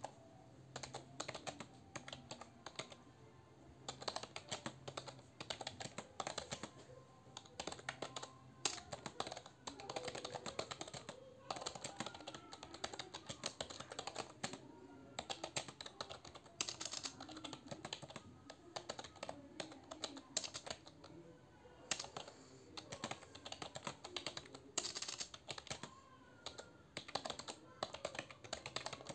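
Fast, continuous typing on a computer keyboard: a dense stream of key clicks with a few brief pauses.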